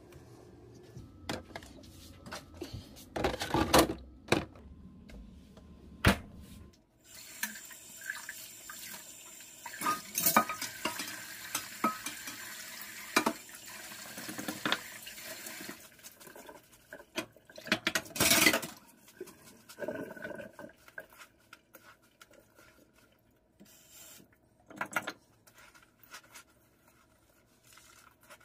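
A few knocks and clunks, then a kitchen tap runs steadily into a stainless-steel sink for about nine seconds while a sponge is rinsed. After it stops come dishes clinking and a sponge scrubbing a steel bowl.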